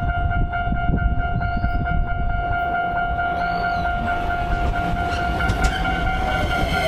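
Train rumbling through a level crossing while the crossing alarm sounds its steady ringing tone; near the end, falling tones come in.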